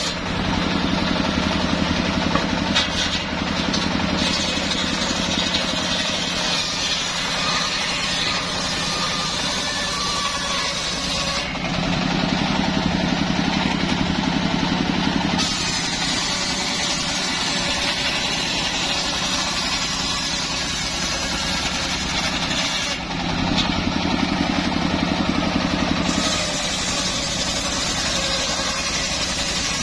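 Homemade circular saw bench running steadily, its large blade ripping a wooden board lengthwise, with the steady drone of the machine that drives it.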